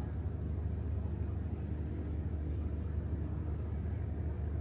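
Steady low rumble of motor-vehicle engine noise, with a faint even hum above it.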